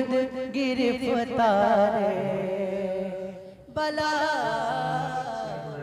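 A man singing an Urdu naat (devotional poem), drawing the words out in long, wavering, ornamented held notes. There is a brief break about three and a half seconds in, then the next held phrase.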